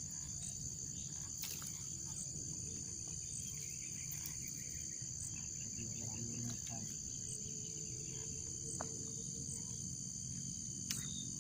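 A steady, high-pitched chorus of insects, crickets or similar, trilling without a break, with a couple of faint clicks, one about a second and a half in and one near the end.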